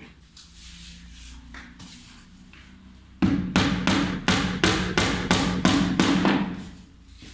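Small hammer driving a nail into the wooden edge strip of an MDF spoilboard on a CNC router table: a quick run of about a dozen blows, three or four a second, starting about three seconds in, with a low ringing under them.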